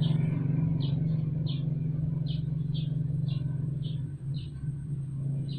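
Steady low rumble of a running motor, like an idling engine, with faint light ticks about twice a second.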